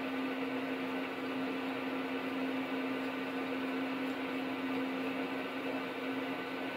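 A motor running steadily: a constant low hum with an even hiss.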